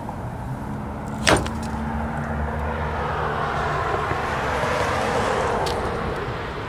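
A single sharp plastic snap about a second in, as the spring-loaded cover of the trailer-wiring connector is let go and slaps shut. Then a vehicle passes, its engine hum and tyre noise swelling and fading.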